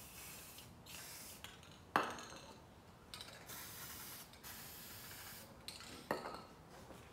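Aerosol spray paint can hissing in several short bursts as paint is sprayed onto the water for hydro dipping. A sharp knock about two seconds in, and another near six seconds.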